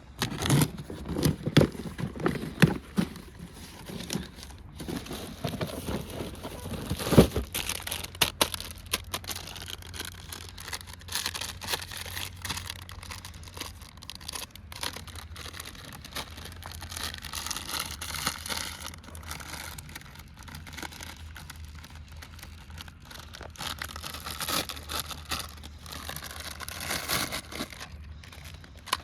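Toy packaging being handled and opened: crinkling, rustling and tearing with many irregular clicks and knocks, over a low steady hum.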